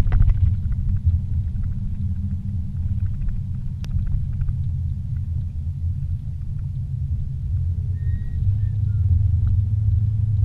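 Car engine and tyre rumble heard from inside the cabin while driving on a paved road: a steady low drone that grows a little stronger about eight seconds in. There is a single sharp click about four seconds in.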